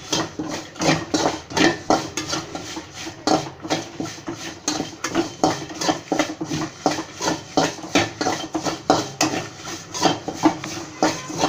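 Spatula scraping and knocking against a metal kadai as dried red chillies, garlic and curry leaves are dry-roasted and stirred, with no oil sizzle. The strokes come in an uneven run of about two a second.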